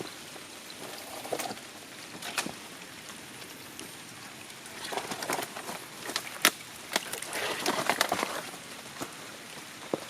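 Light rain falling on tree leaves over a steady hiss, with scattered sharp drop ticks. Footsteps crunch in two short runs, about halfway through and again toward the end.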